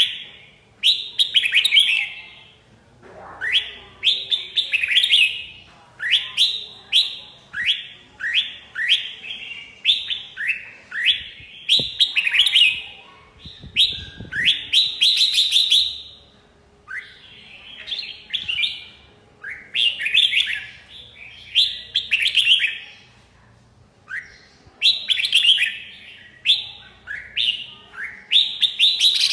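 Red-whiskered bulbul singing: short phrases of quick, sharp chirping notes repeated every second or two with brief pauses between them.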